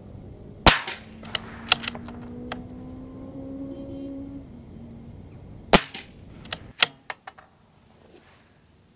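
Two shots from a moderated CZ 457 Royal bolt-action .22 LR rifle firing Aguila Super Extra high-velocity rounds, about five seconds apart. Each shot is followed by a quick run of clicks as the bolt is worked.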